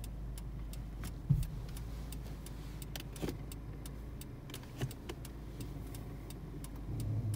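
Car engine idling, heard from inside the cabin as a steady low hum, with a regular ticking at about three a second. A few knocks, the loudest about a second in, and the hum grows louder near the end.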